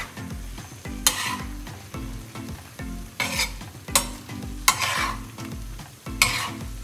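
A metal spatula scrapes across a flat tawa griddle as chicken pieces are stirred and turned, with the chicken sizzling throughout. Several sharp scrapes stand out at uneven intervals.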